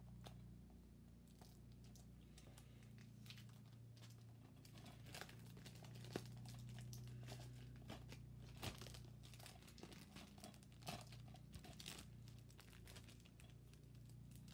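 Plastic shrink-wrap being picked at and peeled off a DVD case: faint crinkling and tearing with many small scattered clicks, over a low steady hum.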